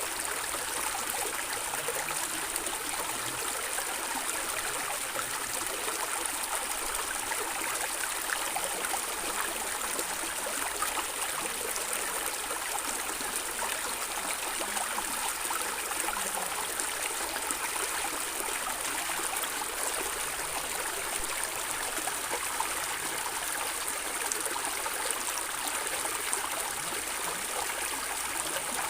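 A stream running over stones, a steady gurgling and trickling with no pauses.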